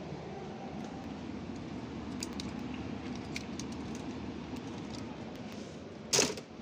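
Plastic clothespins clicking and clattering as they are handled on a metal drying rail, a few light clicks and then one loud clatter near the end, over a steady low background hum.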